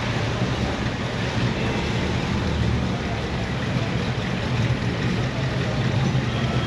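Car engine running at a steady low rumble, with no revving.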